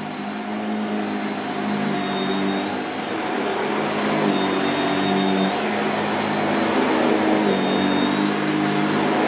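Shark Powered Lift Away NV681UKT bagless upright vacuum cleaner running on carpet with its motorised brush roll on: a steady motor hum with a thin high whine, the pitch shifting slightly every second or two as the floor head is pushed and pulled over the pile.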